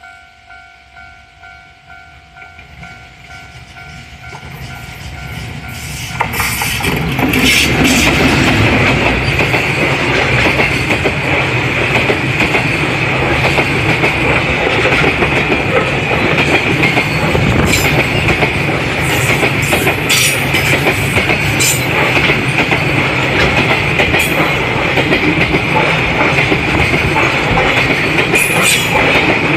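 Level-crossing warning bell ringing in steady pulses, about two a second. From about six seconds in, a freight train hauled by a JR Freight EF210 electric locomotive passes close by, loud enough to drown the bell, with the wagon wheels clattering over the rail joints.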